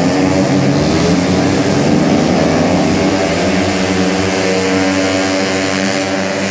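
Tuned 130cc automatic scooter race engines running at high revs, with a steady, slightly wavering pitch that eases off a little near the end.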